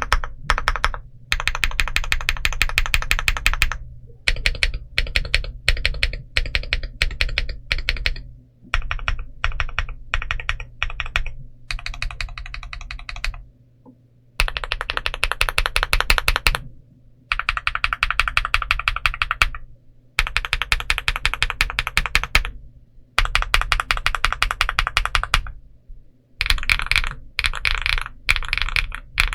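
Typing on a Monsgeek M1V5 aluminium 75% mechanical keyboard: fast runs of key clicks lasting a second or three, separated by short pauses.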